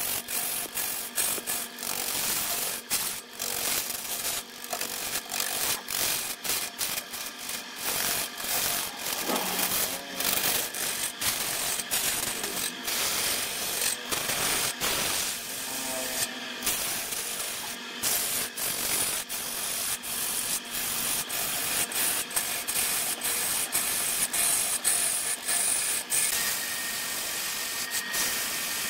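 Turning tool cutting into a large wooden blank spinning on a wood lathe: a continuous rough scraping of the steel against the wood, broken by frequent irregular clicks and knocks as the shavings tear off.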